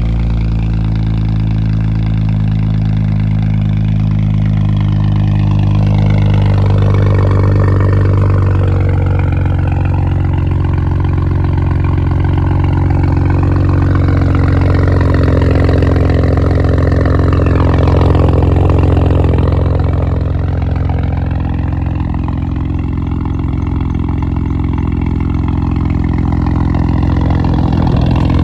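BMW N54 twin-turbo straight-six idling steadily through a 4-inch straight-through exhaust: catted downpipes into a Y-pipe, with no muffler or resonator. The idle swells slightly louder a couple of times.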